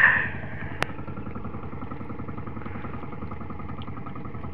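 Small boat engine idling with a steady, rapid low chugging. There is a short burst of noise at the very start and a single sharp click a little under a second in.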